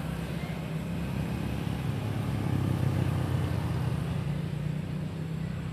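Steady low rumble of a motor vehicle engine running, a little louder around the middle.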